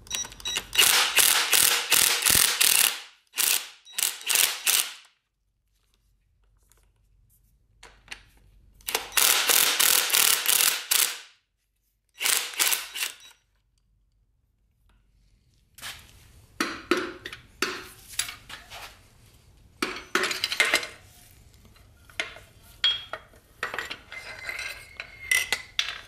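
Ratchet wrench clicking in four quick runs as the rod-cap nuts on a small block Chevy 350's number three connecting rod are loosened. After that, scattered metal clinks and taps as the rod cap and bearing are worked off.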